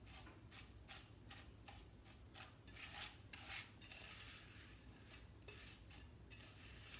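A spoon stirring and scraping Wheaties cereal through melted chocolate in a stainless steel saucepan: faint, repeated scrapes, roughly one or two a second.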